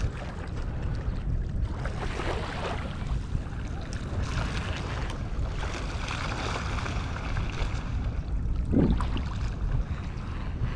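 Wind rumbling on the microphone over small waves lapping on a sandy shore, briefly louder about nine seconds in.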